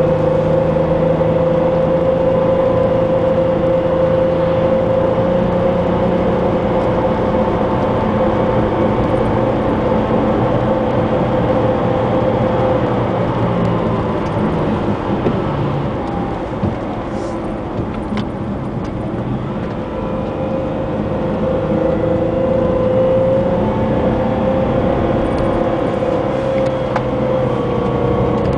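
Jaguar X-Type on the move, heard from inside the cabin: a steady engine hum over tyre noise on wet asphalt. It eases for a few seconds around the middle and then builds again.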